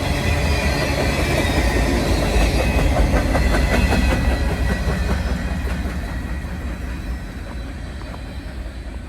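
Freight cars of a manifest train rolling past, wheels clicking rapidly over the rail joints over a low rumble. The sound fades steadily in the second half as the train moves away.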